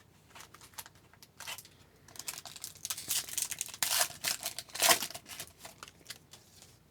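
Foil wrapper of a trading-card pack being torn open and crinkled. A run of crackling rips and crinkles, loudest between about two and five seconds in.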